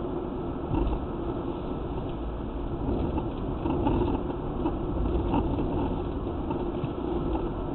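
Steady road and tyre noise with a low engine hum, heard inside a car's cabin as it cruises at speed on an expressway.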